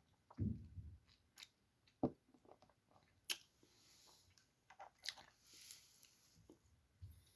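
Close mouth sounds of someone tasting a sip of whiskey: scattered small wet clicks and smacks as it is worked around the mouth, with a soft low thump about half a second in.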